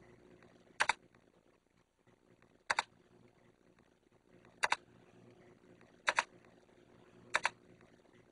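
Five sharp double clicks, each a quick pair, coming every one to two seconds over a faint low hum.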